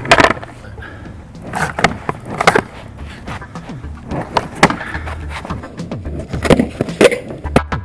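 Skateboard wheels rolling on a flat pad, with a series of irregular sharp clacks as the board is shifted and tapped during small freestyle tricks.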